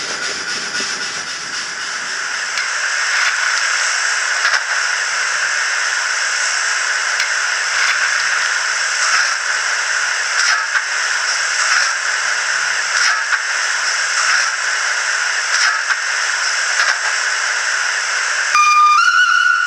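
Sound decoder of a model 140C6 steam locomotive playing a steady steam hiss through the model's small speaker. Near the end a steam whistle sounds, stepping up to a higher pitch.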